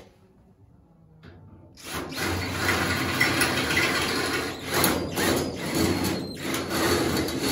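Cordless drill boring holes through the sheet-metal door sill reinforcement bracket. It starts about two seconds in and runs steadily under load.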